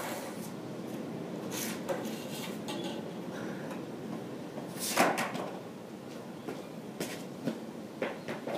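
Skateboard and footsteps on a concrete slab: scattered light knocks, with one loud clack of the board about five seconds in.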